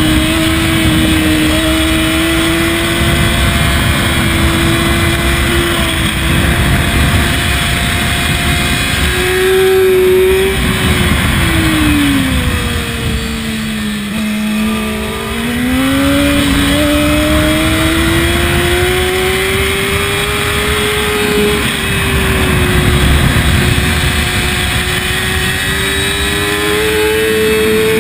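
Sport motorcycle engine pulling hard, heard from the bike itself with heavy wind rush. The engine note holds steady, drops as the rider rolls off about ten seconds in, bottoms out around fourteen seconds, then climbs back as the bike accelerates out of the corner.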